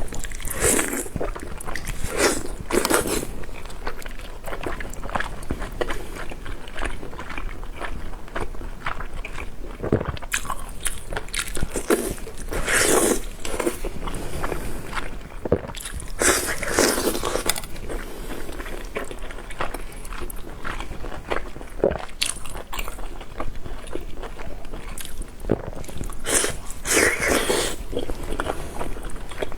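Close-miked eating of marinated raw oysters: steady wet chewing and biting with many small mouth clicks, and a few louder bursts.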